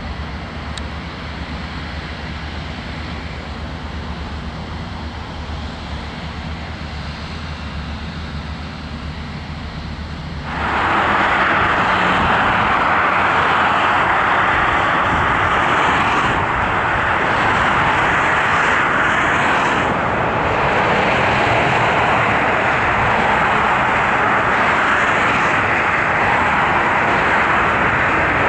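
Heavy diesel machinery running with a steady low hum. About ten seconds in it suddenly turns much louder, into a steady loud rush, and stays that way.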